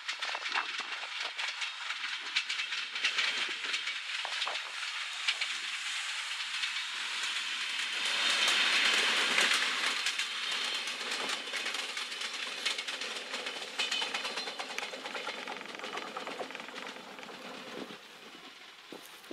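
Two coupled Siemens Desiro diesel multiple units passing at speed: a rushing rumble of wheels on rail with many quick clicks over the rail joints. It grows to its loudest about eight to ten seconds in as the train goes by, then fades as it runs off into the distance.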